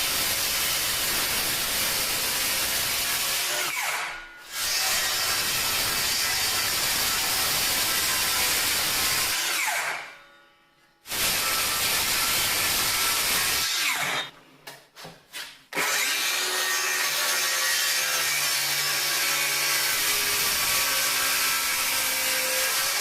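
Power saw cutting cherry boards in repeated passes of several seconds. Near the end of each pass the motor's pitch falls as it winds down, with short pauses between passes.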